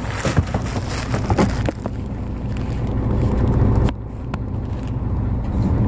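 Hino 500 truck's diesel engine idling steadily, heard from inside the cab. A few light knocks come in the first second and a half.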